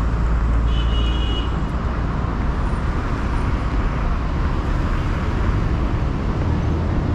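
Steady road traffic noise from cars passing close by on a busy city street, with a short high-pitched tone about a second in.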